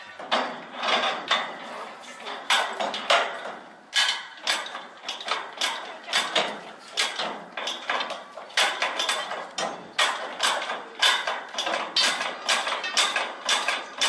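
Repeated metallic clanking, about two to three strokes a second, as a lifting jack is worked under a derailed miniature steam locomotive to raise it back onto the rails.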